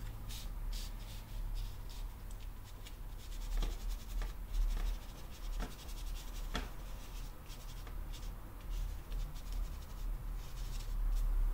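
Handheld ink blending tool rubbed and dabbed over a paper planner page in short, quick scratchy strokes, applying ink, with a steady low hum underneath.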